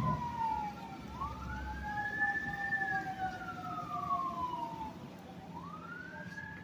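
Emergency vehicle siren wailing, its pitch sliding slowly up and down about every four seconds, with a second, lower siren tone gliding alongside. A steady hiss of rain lies beneath.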